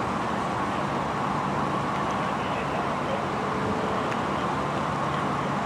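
Steady low hum of idling vehicle engines and road traffic.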